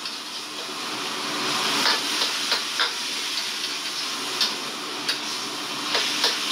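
Water splashed into a hot wok of stir-fry, sizzling steadily, with a steel ladle stirring and knocking against the wok about seven times.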